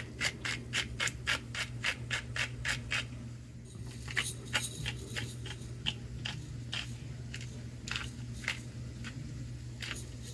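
Scraping strokes of a utensil in kitchenware, about four a second for the first three seconds, then slower and irregular, over a steady low hum.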